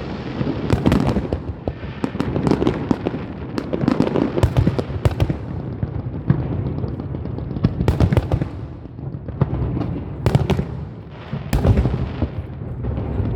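Fireworks going off: a rapid, irregular series of sharp bangs and crackles over a continuous low rumble of explosions.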